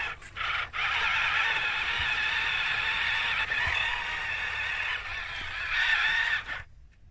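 Whine of the electric drive motors and gearboxes of a Fayee RC tracked military truck as it drives. The whine drops out twice just after the start, swells briefly about six seconds in, then cuts off suddenly near the end.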